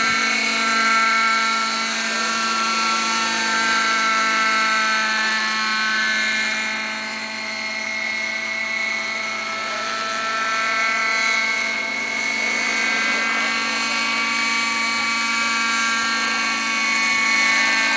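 Radio-controlled model helicopter in flight: a steady, high-pitched whine of its motor and rotors, drifting slightly up and down in pitch as the rotor speed changes.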